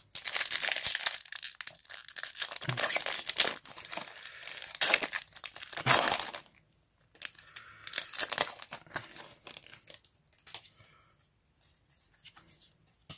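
Foil wrapper of a Pokémon trading-card booster pack crinkling and tearing as it is ripped open by hand, in loud rustling bursts for the first six seconds or so. After that come a few quieter crinkles, then faint rustles as the cards are handled.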